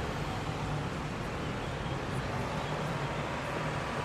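Steady outdoor background noise: an even hiss with a faint low hum and no distinct events.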